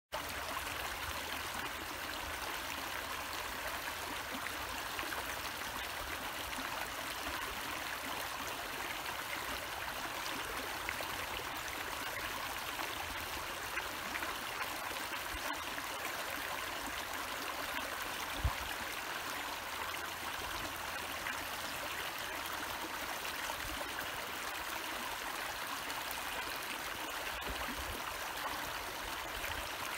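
Desert wash running with shallow, muddy monsoon runoff: a steady rush of water flowing over gravel and stones. One brief low thump about two-thirds of the way through.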